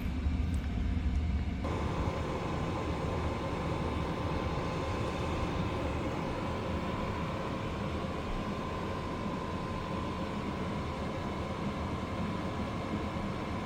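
Steady fan whir with a low rumble. About two seconds in, a higher hiss and a faint steady whine come in and then hold.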